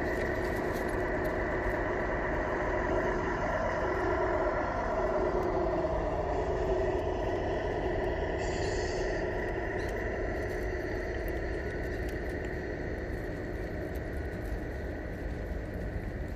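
A 1:14 scale Tamiya RC semi-truck (Kenworth King Hauler) driving past, running with a steady engine-like hum. There is a short hiss about eight seconds in, as it passes closest.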